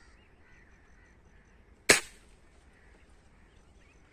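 A single airgun shot about two seconds in: one sharp crack that dies away quickly. Faint bird calls run underneath.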